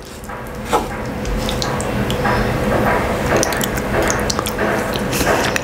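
Wooden spoon and fork mixing and scooping rice, runny fried egg and tomato-sauce sardines: wet squishing with many small clicks and scrapes, close to the microphone.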